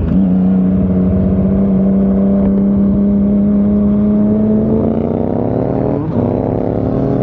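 Motorcycle engine running under way, its note held steady, then climbing in revs over the last few seconds, with a brief break about six seconds in.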